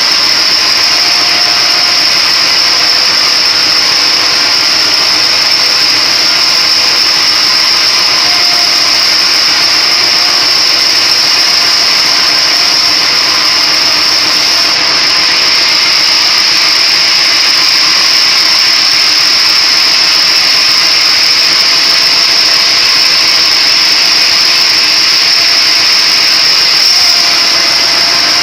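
Splitting machine running steadily, a loud constant machine noise with a high steady whine over it.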